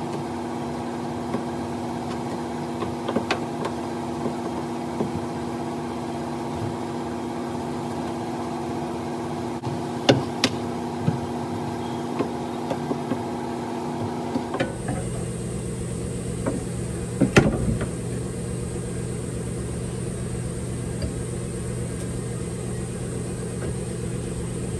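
Steady mechanical hum that changes its pitch pattern abruptly about fifteen seconds in, with a few sharp clicks and knocks from hand work.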